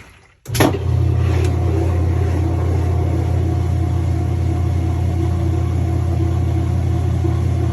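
Kenmore 80 Series direct-drive washer's motor kicking on with a clunk about half a second in, then running with a steady low hum as the washer drains.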